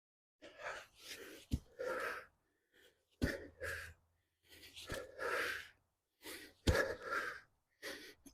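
Heavy, effortful breathing in short puffs while digging, broken by four sharp knocks of a hand digging tool striking the soil and roots, about one every second and a half.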